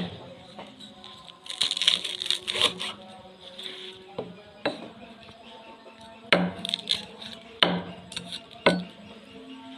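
Sharp knocks and cracks, about six in all, with a short stretch of scraping noise about two seconds in.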